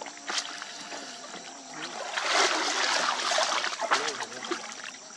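Water splashing and trickling as a woven basket of small fish is worked in canal water, with dense splashing starting about two seconds in.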